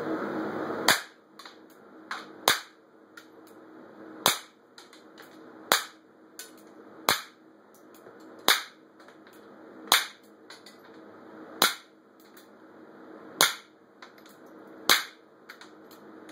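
Ten suppressed shots from a .22 pistol firing subsonic rounds through a homemade titanium-baffled suppressor run wet with water, about one every 1.5 s. Each shot is a short, sharp pop, with a few fainter clicks between them. The bullets hitting a wooden block are louder than the weapon firing.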